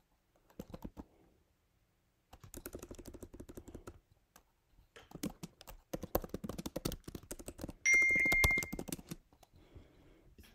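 Typing on a computer keyboard in bursts of quick key clicks. About eight seconds in, a steady high electronic beep lasting about a second is the loudest sound.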